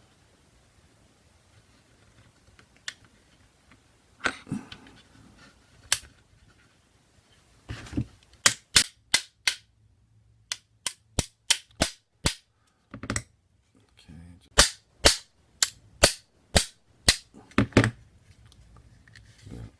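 Sharp metal clicks and snaps from the small parts of a KWA M11 airsoft gun's lower receiver being fitted and worked by hand during reassembly. A few scattered clicks come first, then quick runs of loud clicks, about two a second, through the second half.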